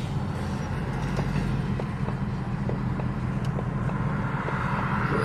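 Ford Mustang GT's Coyote V8 idling, with a light regular tick about two to three times a second. The owner takes it for the common 'Coyote tick', which shows only in park at idle.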